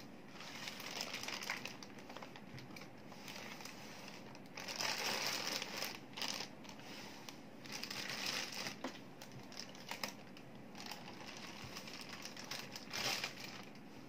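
Clear plastic wrap crinkling in several bursts as hands work it off a printer, with a few light ticks and taps in between.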